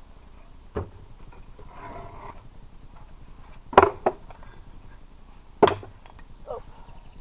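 Wooden beehive boxes knocking as they are lifted and set down: four short knocks, the loudest just past the middle, with another right after it.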